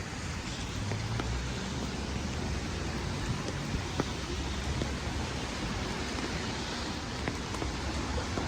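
Steady rain falling, an even hiss with a low rumble underneath and a few sharp ticks of drops.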